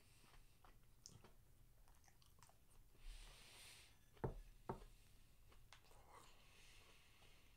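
Faint, close mouth sounds of someone chewing bites of diced beef steak and rice, with small clicks throughout. A little after four seconds in come two sharp knocks about half a second apart, the loudest sounds.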